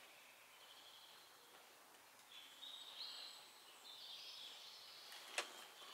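Near-silent woodland ambience with faint bird chirps, and one sharp click about five seconds in.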